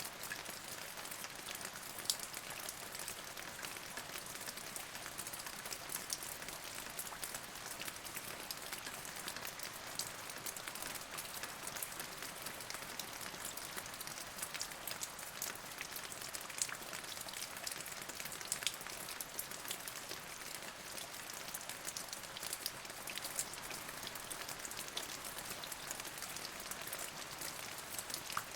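Steady rain falling, an even hiss dotted with many sharp drop ticks close by.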